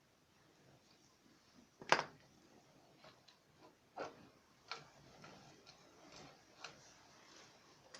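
A few scattered metallic clicks and knocks, the loudest about two seconds in, with smaller ones around four, five and six and a half seconds: tools and parts being handled during a tiller repair.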